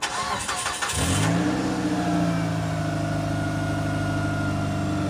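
2009 Mitsubishi Galant engine cranking for about a second, then catching and settling into a steady fast idle, with a faint whine over it. The exhaust has a newly fitted catalytic converter and freshly tightened flange bolts, so it runs without the ringing rattle of the old converter.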